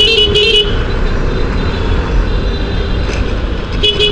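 Two-wheeler riding in slow, heavy city traffic: a steady engine and road rumble, with a vehicle horn beeping in quick repeated toots, about four or five a second, in the first half-second and again near the end.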